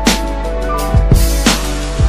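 Background music with a drum beat and held notes.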